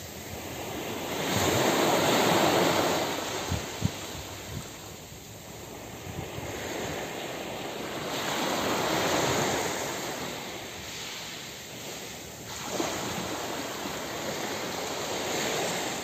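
Small sea waves breaking and washing up the shore, the surf swelling and fading three times, about six seconds apart.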